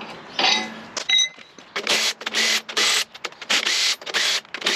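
Cordless impact wrench hammering in short repeated bursts, about two a second, breaking loose the cylinder head bolts. Before it starts there is a clatter and a short metallic clink.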